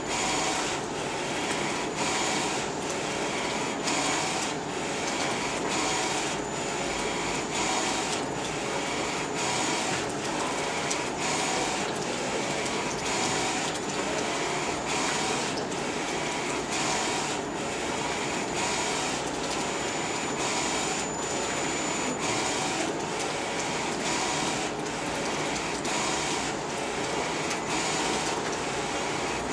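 Flatbed direct-to-garment inkjet printer printing T-shirts: the print-head carriage running back and forth over steady machine noise, its strokes in a regular rhythm a little under two a second.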